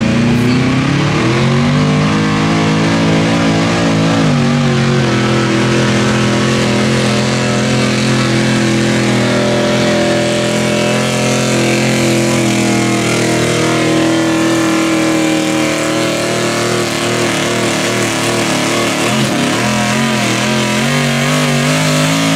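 Chevrolet square-body pickup's engine running hard at high revs under heavy load as it pulls a weight-transfer sled across dirt. The pitch climbs over the first two seconds, dips briefly about four seconds in, then holds high and fairly steady.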